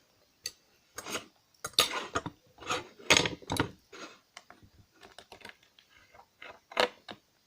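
Irregular small metal clicks and clatters from a precision screwdriver working the tiny steel screws of a laptop hard drive and the screws being handled, with a few louder knocks about a second in, around two to three and a half seconds, and near the end.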